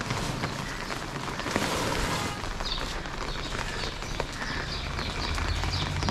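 Steady rain falling and dripping, with a bird chirping repeatedly in short, high calls from about two and a half seconds in.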